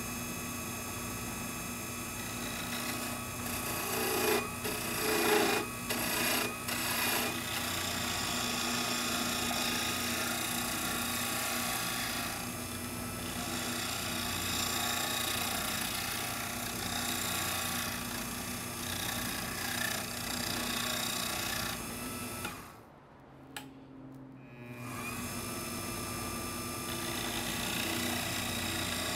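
Small wood lathe's motor running with a steady whine while a hand-held turning tool cuts a spinning sugar maple pen blank, the cutting heard as rough scraping, loudest a few seconds in. Near the end the motor sound drops away for about two seconds, then rises again as the lathe spins back up.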